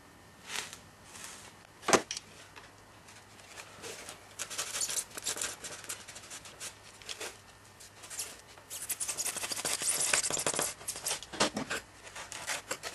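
An aluminium motor plate and a foam wing being handled, the plate worked out of its slot in the foam: scratchy rubbing and scraping with scattered clicks, one sharp click about two seconds in, and the busiest rubbing near the end.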